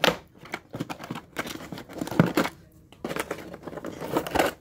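Cardboard and plastic toy packaging crinkling and rustling as it is handled and cut open with scissors, with scattered sharp clicks, the loudest about two seconds in.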